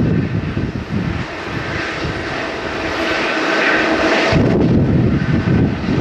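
Jet airliner engines running with a steady whine, mixed with wind buffeting the microphone; the wind rumble fades out for a few seconds in the middle and comes back suddenly.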